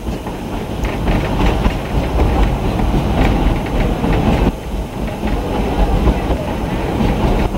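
Narrow-gauge passenger train rolling along, heard from aboard: a steady rumble of wheels on rails with scattered clicks and clatter.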